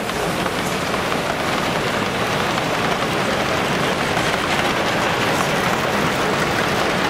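Large-scale model trains rolling along the layout's track: a steady, even rumble and rattle of wheels on rail with faint light clicks, over the busy hum of a crowded exhibition hall.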